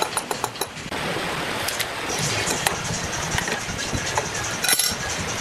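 An adjustable wrench working the bolts of a table saw's wooden rip fence: light metal clicks and taps, with one sharper clank near the end, over a steady background hiss.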